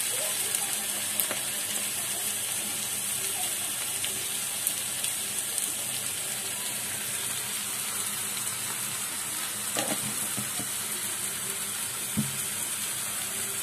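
Half-fried sliced onions sizzling steadily in hot oil in a frying pan, with a few faint clicks along the way.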